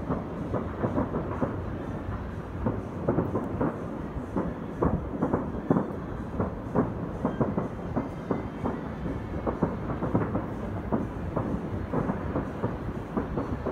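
Distant fireworks going off in an irregular, dense run of muffled bangs, several a second, merging into a continuous low rumble.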